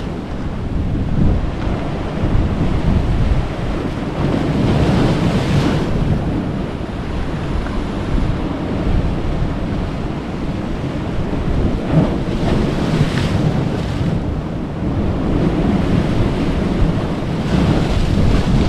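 Sea surf washing and breaking against a rocky shore, with wind noise on the microphone. A few louder wave breaks stand out, spread through the stretch.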